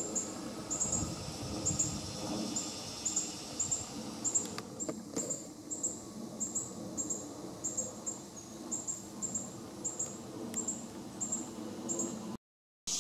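An insect chirping in short, high-pitched pulses, two or three a second, often in pairs or triplets. A couple of faint clicks come about four and five seconds in, and the sound cuts out briefly near the end.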